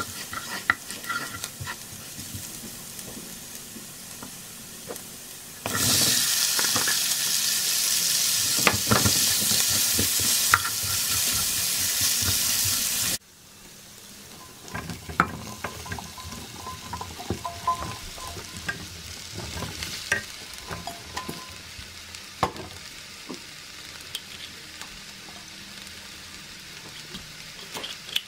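Minced garlic and then sliced onions sizzling in butter and oil in a nonstick wok, stirred with a wooden spatula that scrapes and taps the pan. About six seconds in the sizzle turns much louder and brighter for about seven seconds, then drops suddenly back to a softer fry with scattered spatula knocks.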